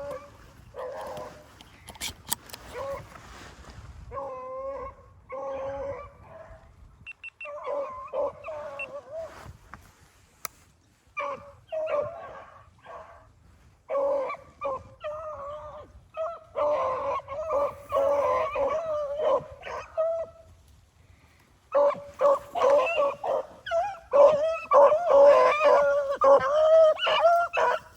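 Several rabbit-hunting hounds barking and baying, scattered calls at first that grow into a dense, louder chorus over the last third.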